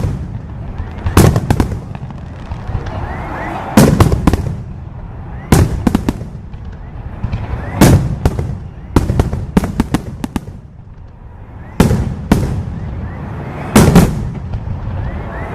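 Aerial fireworks shells bursting in a display, with sharp loud bangs every second or two, often in quick pairs. Each bang trails off in a short echo.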